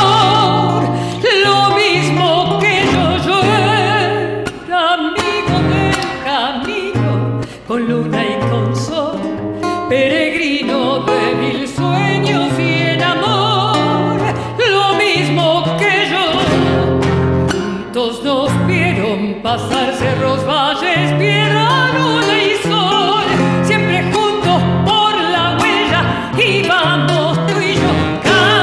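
A woman sings an Argentine folk bailecito over strummed acoustic guitar accompaniment.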